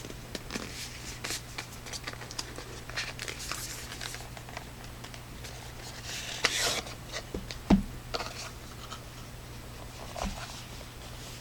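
Hands opening a flashlight's retail box and handling its packaging: light scratches and clicks, a rustle of packing about two thirds of the way in, and a knock just under eight seconds in.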